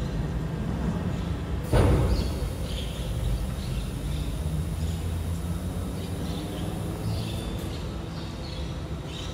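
BYD electric garbage truck loading: one heavy thump about two seconds in, as a bin is knocked against the rear loader, over a steady low hum of the truck's machinery, with faint high chirps.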